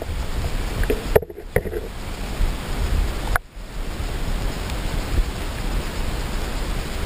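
Flowing river water: a steady rushing wash with a heavy low rumble, dipping out briefly twice.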